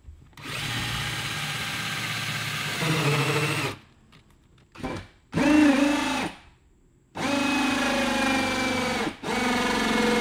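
Cordless drill drilling into the dinghy's hull, run in about five separate trigger pulls with short pauses between. The motor whine holds steady within each run; the first and longest run lasts about three seconds.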